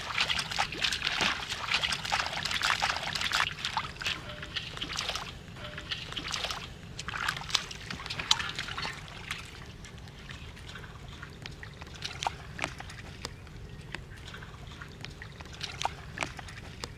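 Shallow muddy water sloshing and splashing as someone wades barefoot and works hands through it. The splashing is busy for the first several seconds, then thins to scattered small splashes and trickles.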